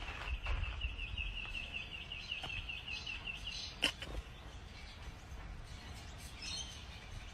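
A fast trill of short high chirps at one pitch, about six a second, lasting some three and a half seconds. A single sharp knock follows, which is the metal gate being bumped as a cat climbs over its bars.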